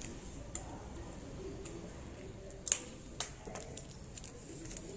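A cat crunching dry kibble from a plate: a few sharp, separate crunching clicks, the loudest about two and a half seconds in.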